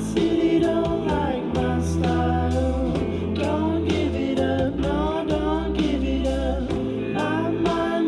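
A band's song with lead singing over guitar and bass, played back through JBL LSR305 studio monitors and picked up by a recorder in the room.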